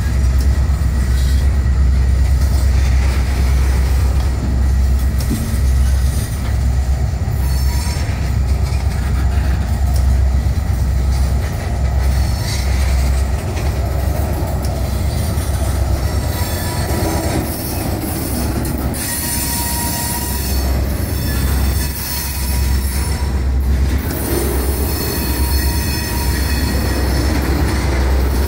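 Freight cars, tank cars then open hopper cars, rolling past at close range: a steady heavy rumble of steel wheels on rail, with wheel squeal in stretches during the second half.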